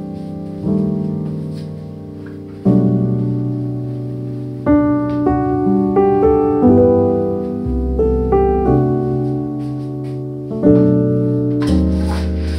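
Background piano music: chords struck and left to fade, a new chord every second or two.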